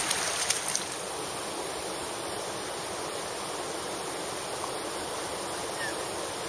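Mountain stream water running steadily, with a few brief sharp sounds in the first second.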